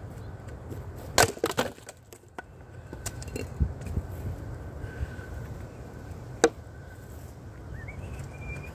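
An axe strikes and splits two stacked firewood rounds about a second in: one loud sharp hit followed by a quick run of cracks as the wood splits and the pieces fall. Smaller knocks follow as split pieces land and are handled, with one sharp wood-on-wood knock later, and a short bird chirp near the end.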